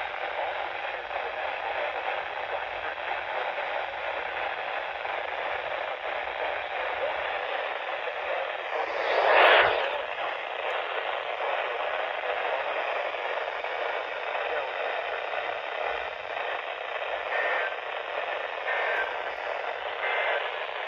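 Radio static from a weak, barely received signal: a steady, narrow-band hiss, with a louder swell of noise about nine and a half seconds in.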